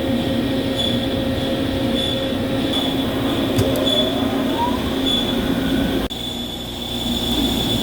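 CNC machine cutting a cast-iron tire mold segment: a steady mechanical running sound with a high, squealing whine that swells about once a second. Midway a tone rises in pitch, and about six seconds in the sound changes abruptly, after which the whine holds steady.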